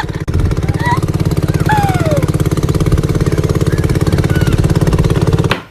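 An engine running steadily with a rapid, even pulsing beat, cutting off suddenly near the end.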